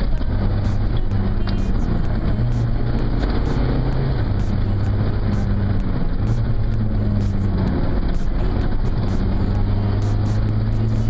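Rally car engine running hard, its pitch holding and then stepping to a new level every second or two as it moves through the gears, over steady road and tyre noise.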